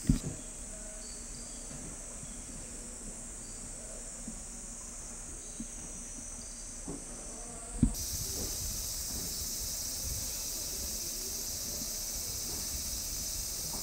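A steady, high-pitched chorus of insects, which gets louder and fuller about eight seconds in. There is a short thump at the very start and another just before the chorus swells.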